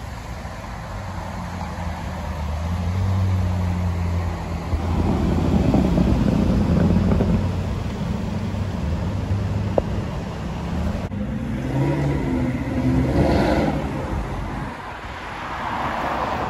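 Ferrari V8 sports car engine running at low revs in traffic, then accelerating away, with the exhaust note rising in pitch from about twelve seconds in. Near the end, a passing car's tyre and engine noise.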